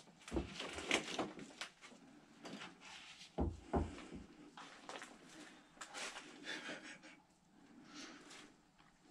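Footsteps and shuffling through debris on a littered floor: irregular rustling, small clatters and creaks, with a low thump about half a second in and another about three and a half seconds in.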